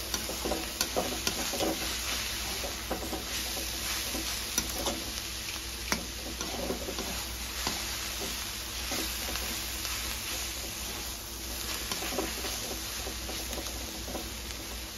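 Metal spatula stirring and scraping grated cauliflower around a metal kadhai, with irregular clicks and scrapes against the pan and the mixture sizzling beneath. The cauliflower is fully fried and coriander leaves are being mixed in.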